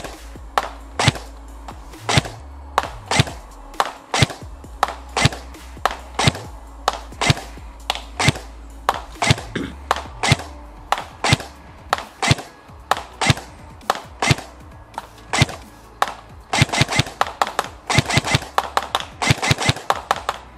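Tokyo Marui P90+ airsoft electric gun firing single shots at a steady pace of about two a second, then short rapid full-auto bursts from about 16 seconds in.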